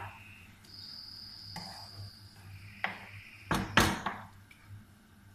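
Wooden spatula stirring chicken in tomato sauce in a nonstick frying pan, knocking against the pan a few times about three to four seconds in. Under the first half sits a faint, steady high-pitched tone lasting about two seconds.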